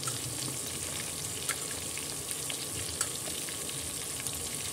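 Marinated chicken pieces deep-frying in hot oil in a kadhai: a steady sizzle with scattered sharp pops, the clearest about a second and a half in and again at three seconds.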